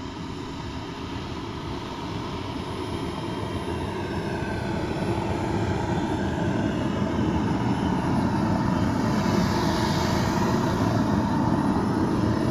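Kingtech K102G4+ model turbojet running on the ground, a steady jet whine and rush that grows gradually louder as the model rolls toward the microphone, with the high hiss strongest about ten seconds in.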